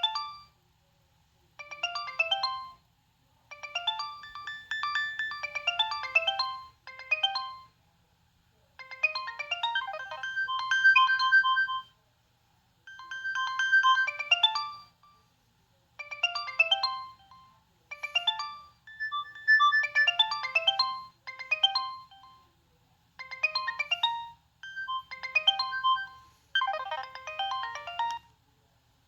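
Nokia 6610 mobile phone playing its preloaded ringtones: a string of short electronic melodies, each a phrase of half a second to a few seconds, with brief silences between them.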